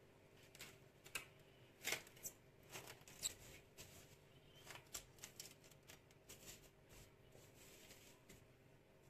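Plastic cling film crinkling and crackling as it is stretched and pressed over the rim of a glass bowl, in a string of short faint crackles with a few sharper ones about two and three seconds in.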